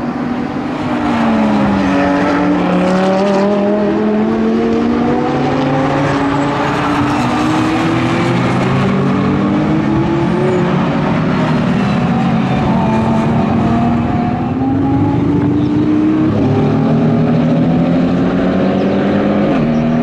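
Several Mercedes-AMG GT4 race cars with 4.0-litre twin-turbo V8s accelerating hard in a group. Overlapping engine notes climb in pitch, dropping sharply at upshifts a few times.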